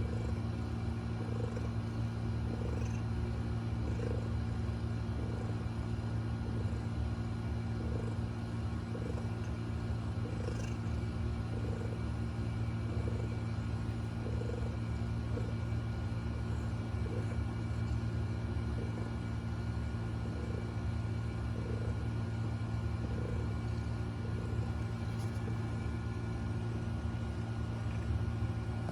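A mother cat snoring softly in her sleep while nursing newborn kittens: a short snore with each breath, a little over a second apart, over a steady low drone. She is worn out from giving birth.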